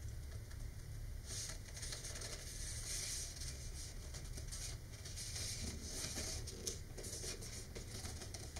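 Paper rustling and scraping in irregular bursts as hands slide an embossed paper wrap around a rolled paper rocket transition, over a steady low hum, with one light tick late on.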